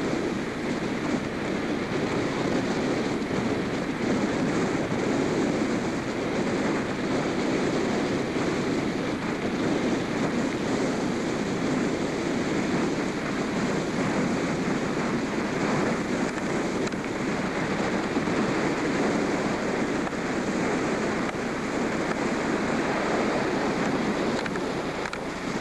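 Wind blowing across the camcorder microphone, a steady rushing noise.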